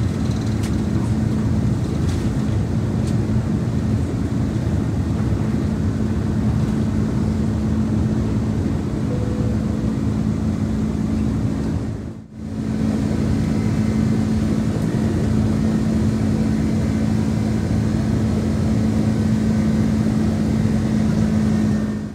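Steady engine and airflow noise inside an airliner cabin, with a steady low hum; it drops out briefly about twelve seconds in.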